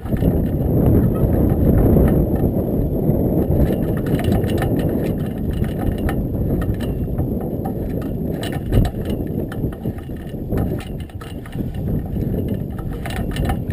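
Wind rumbling and buffeting on an action camera's microphone out on open water, a steady low noise with scattered light ticks.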